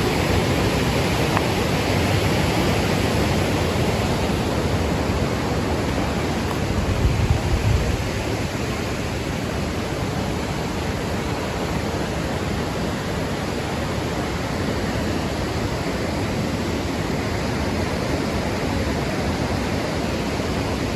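Steady rushing of water from a mountain stream running high after heavy rain, somewhat louder in the first few seconds and then easing a little.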